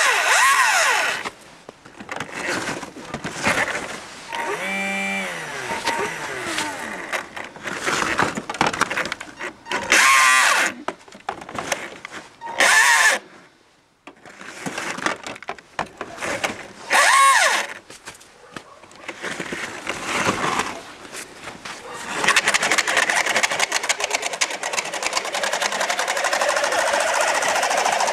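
RC truck's 540-size brushed electric motor whining up and down in short bursts of throttle as its chained wheels spin and dig in snow, then running steadily from about two-thirds of the way in as the truck drives off.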